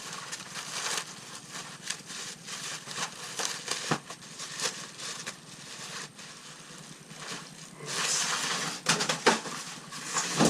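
Cured spray-foam insulation and the cardboard of a shipping box being broken and torn apart by hand, an irregular run of crackling and crunching that is loudest near the end.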